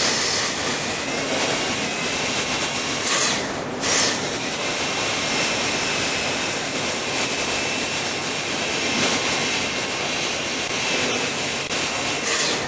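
High-speed dental handpiece running with a steady high whine and hiss as its bur cuts a typodont central incisor for an all-ceramic crown preparation. It briefly cuts out and starts again about three and a half seconds in.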